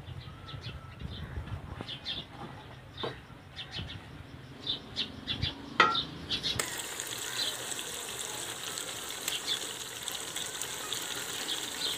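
Tripe frying in masala in an aluminium pot, stirred with a wooden spoon: a couple of sharp knocks of the spoon on the pot, then from about halfway a steady sizzle. Birds chirp throughout.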